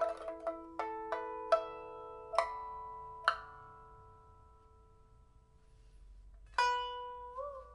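1985 Shen Huanchun pipa with a Siamese rosewood body, freshly fitted with a new soundboard and frets, played in a slow passage: five single plucked notes, each left to ring and fade. After a pause of about three seconds, one louder note is plucked and bent upward in pitch as it sounds.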